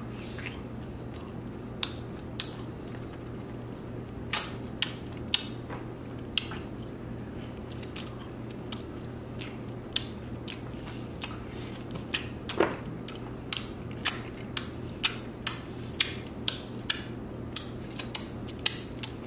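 Messy eating of Buffalo Wild Wings chicken wings: chewing and biting, heard as a string of sharp mouth clicks and smacks that come more often in the second half, about two a second, over a steady low hum.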